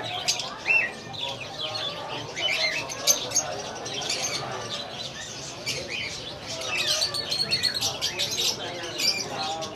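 Many caged parrots and lovebirds chirping and calling at once, short high calls overlapping in a dense chorus that is busiest near the end, with faint voices underneath.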